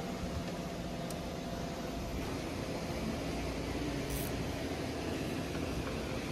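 Steady whirring hiss of a shop fan running, with a couple of faint clicks.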